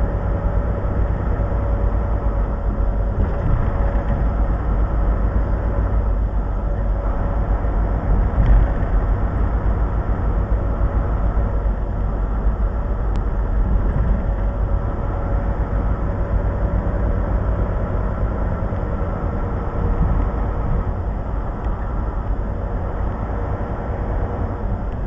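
Steady engine and road noise heard inside a truck cab while cruising at highway speed, with a faint steady whine riding above the rumble.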